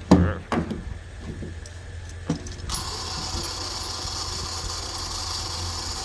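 A few metallic clanks and knocks, then a machine starts up abruptly about two and a half seconds in and runs steadily with a bright hiss.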